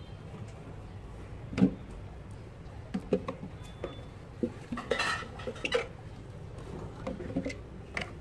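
Whole small cucumbers knocking and bumping against clear plastic jars as they are packed in by hand: a scatter of light knocks and taps, the sharpest about a second and a half in, with a brief scraping rustle around the middle.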